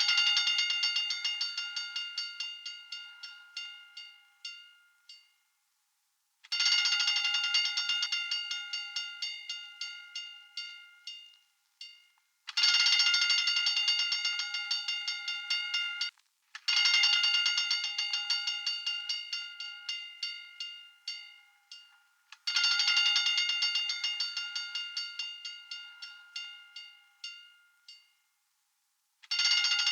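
Fire alarm bell ringing in rapid strokes, in repeated bursts of about four to six seconds, each starting loud and fading away, with short breaks between bursts.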